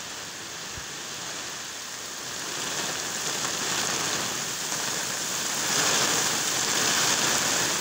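Heavy tropical rain pouring down, a steady hiss that grows louder about a third of the way in and again past the middle as the downpour strengthens.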